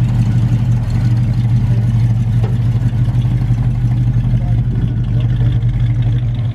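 Plymouth Duster 340's small-block V8 running at low speed with a steady, deep exhaust rumble as the car rolls past and pulls away, without revving.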